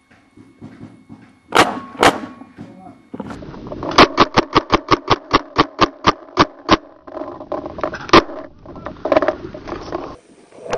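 Paintball marker firing: two shots about half a second apart, then a rapid string of about fifteen shots over nearly three seconds, about five or six a second, and one more shot a little later, over steady background noise.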